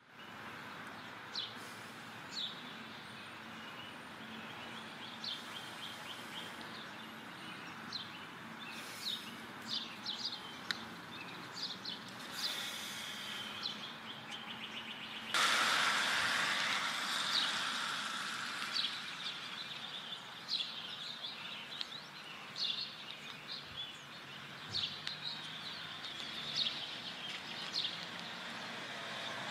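Outdoor street ambience: birds chirping in short, repeated calls over a steady background hum. About halfway through, a louder rush of noise comes in suddenly and fades away over several seconds.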